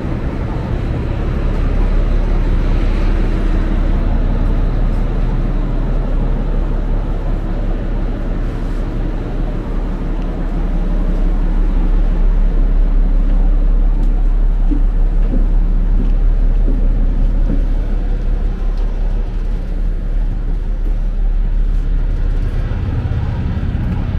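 Passenger ferry's engines running with a steady low rumble and hum.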